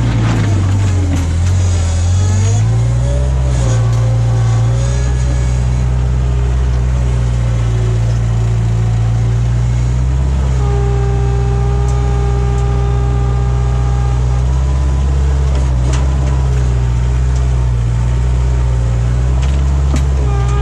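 Skid steer loader's engine running hard under working load, its pitch dipping briefly about a second in and then recovering. A steady higher whine joins from about ten to fourteen seconds in.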